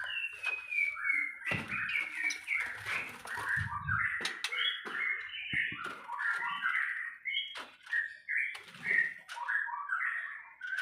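White-rumped shamas giving a rapid run of short chirps and call notes, opening with a falling note, broken by sharp clicks and knocks.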